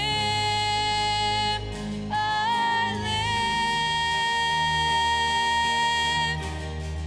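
Church worship band performing a song: a lead singer holds two long sung notes over a steady band accompaniment, the second note the longer of the two.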